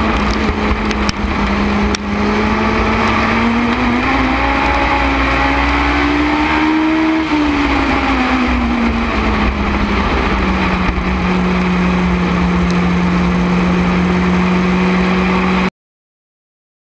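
Legends race car's Yamaha four-cylinder motorcycle engine running hard, heard onboard. Its pitch climbs between about four and seven seconds in, falls back as it eases off, then holds steady at a lower note. The sound cuts off suddenly near the end.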